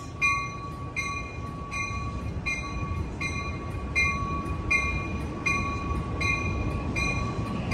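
Amtrak Capitol Corridor passenger train pulling out of a station with a low rumble, while a bell rings steadily about four strikes every three seconds.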